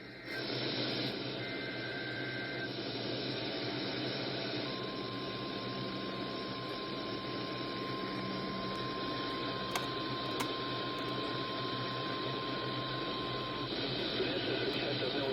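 Radio receiver hiss and static with no programme on the air. A faint steady tone runs from about five seconds in until near the end, and two brief, fainter tones sound about a second and a half in.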